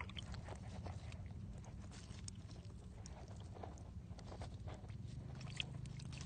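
Faint wet crackles and small scattered clicks from mud and dead leaves stirred by catfish in a shallow muddy puddle, over a low steady rumble.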